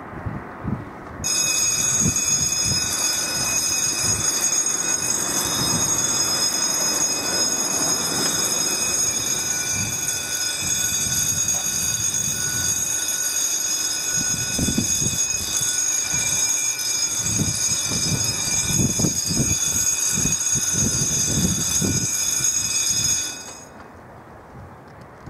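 Level-crossing warning bell ringing steadily as the red lights flash and the barriers come down, warning that a train is approaching. It starts about a second in and cuts off suddenly about 23 s in, once the barriers are down.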